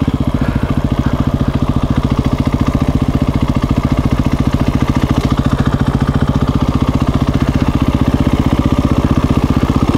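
2017 KTM 350 EXC-F's single-cylinder four-stroke engine running at low, steady revs at slow riding speed, its firing pulses coming evenly with no revving.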